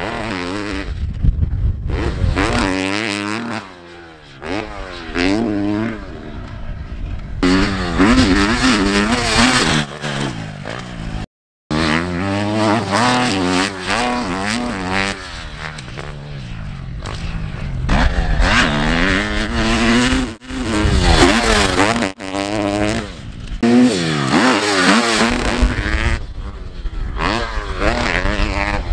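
Motocross dirt bike engine revving hard and dropping off again and again as it is ridden over jumps and through rough ground. The sound comes from shots cut together, with a brief dropout about eleven seconds in.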